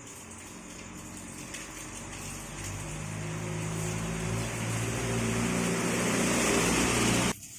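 A motor vehicle's engine, steadily growing louder over several seconds, then cutting off suddenly near the end.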